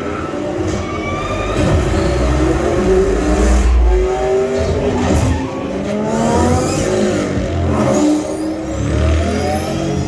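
Film sound effects of racing cars played through a Klipsch Reference Premiere home-theater speaker system with subwoofers: engines revving again and again in rising whines over heavy deep bass rumble, heard through a phone's microphone in the room.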